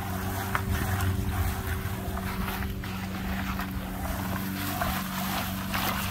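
Wet lump charcoal being stirred and squeezed by hand in a plastic bucket, giving a rough, uneven gritty noise, over a steady low machine hum.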